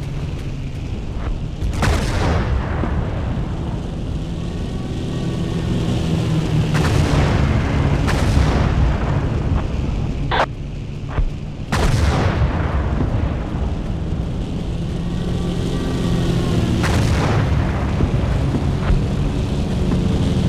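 Heavy wind buffeting the microphone with a constant low rumble, broken by rushing swooshes every few seconds.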